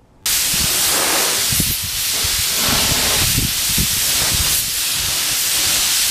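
Compressed-air spray gun with a gravity-feed cup spraying clear coat onto a carbon fiber motorcycle part, a steady loud hiss of air and atomised clear that starts abruptly just after the start. This is a second coat of clear, laid on to bury fisheye cratering in the first.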